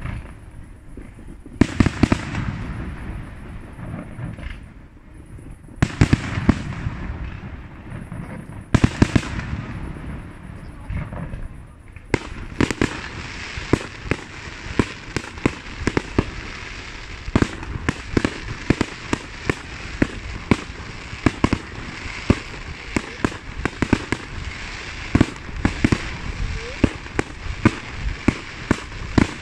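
Fireworks display: three separate heavy bangs of bursting shells with a rolling tail, then from about halfway a dense, fast run of pops and crackles.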